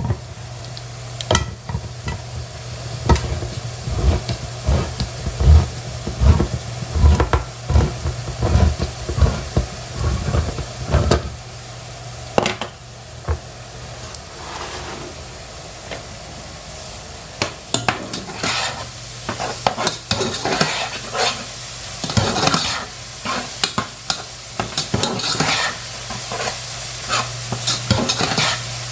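Utensil stirring and scraping in a sizzling pan of browning meat sauce, with irregular knocks against the pan over a steady low hum.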